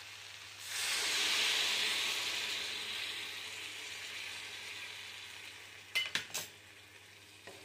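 Tamarind water poured into a hot pan of frying brinjal curry starts sizzling about half a second in, the sizzle dying down over the next five seconds. A few quick clinks of utensils on the pan near the end.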